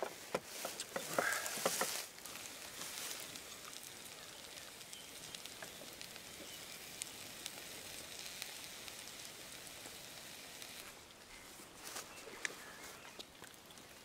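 Fried potatoes, eggs and meat sizzling in a frying pan: a steady high hiss with scattered small pops. Louder handling noise in the first couple of seconds.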